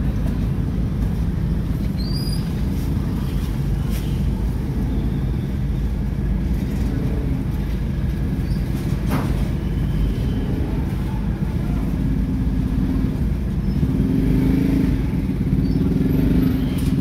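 Steady low rumble of slow street traffic heard from inside a car's cabin, with motorbikes passing close by and a few short clicks and knocks. Near the end a nearby engine note grows louder.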